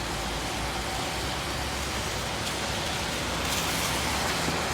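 Steady hiss of road traffic, tyres on pavement, swelling a little near the end as a vehicle passes close by.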